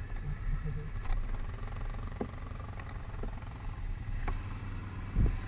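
ATV engine idling with a steady low rumble, with a few faint ticks and a low thump near the end.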